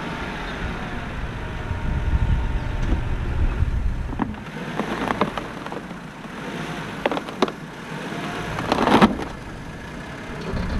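Subaru Legacy 3.6R's 3.6-litre flat-six engine running at low speed as the car creeps forward up plastic drive-on ramps, with a few short sharp knocks from the tyres and ramps; the loudest comes near the end.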